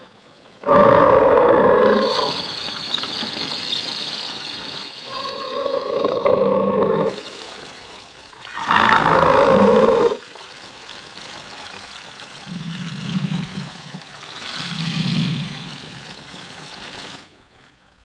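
Alligator roaring: three loud, rough roars in the first ten seconds, then two lower, quieter rumbling roars near the end.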